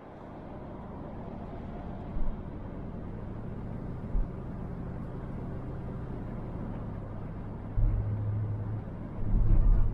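Van driving on the road, heard from inside the cab: a steady low drone of engine and road noise. There are two short low thumps a few seconds in, and louder low rumbles near the end.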